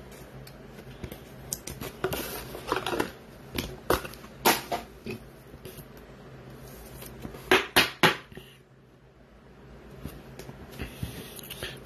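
Football trading card being handled and slid into a clear rigid plastic toploader: irregular scraping and rustling of card and plastic in short bursts, the loudest a little past the middle.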